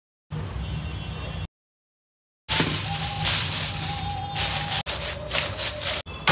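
Aluminium foil crinkling and rustling as it is spread over a pot and pressed down around the rim, loud and crackly, starting about halfway through.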